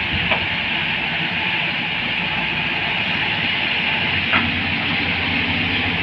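JCB tracked excavator's diesel engine and hydraulics running steadily under load, with two short sharp knocks, about a third of a second in and about four and a half seconds in.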